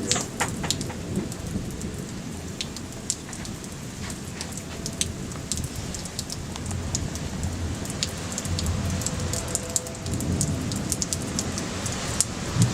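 Heavy thunderstorm rain falling, with many individual drops striking sharply. A low rumble of thunder swells twice in the second half.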